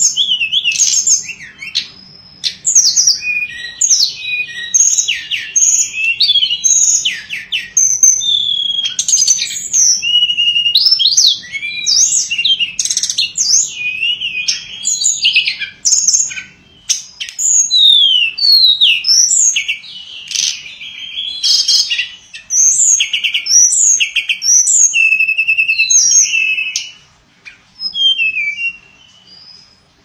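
A caged tledekan pring songbird singing a rapid, varied song of high sweeping whistles and trills, strung together almost without pause, with a few short breaks near the end.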